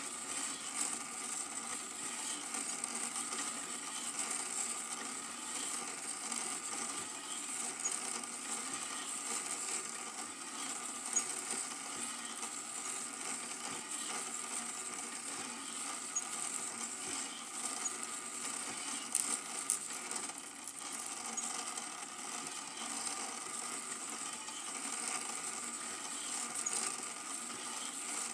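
Super 8 film projector running: a steady mechanical whirr with a high whine, and a few light clicks.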